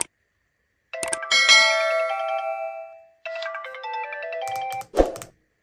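Mobile phone incoming-call ringtone: a bright ringing chime that slowly fades, then a quick run of electronic melody notes. A sharp click comes before it, and a thump near the end is the loudest moment before the sound stops.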